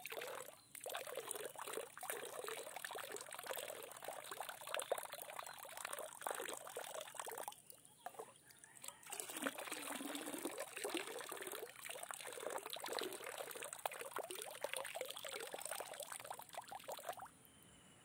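Water splashing and trickling, a busy, uneven patter with a brief break about eight seconds in. It drops away just before the end.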